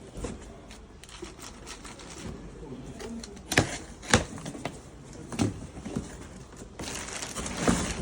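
Handling noise from a boxed car steering rack being moved about: a few sharp knocks and clicks over faint rustling.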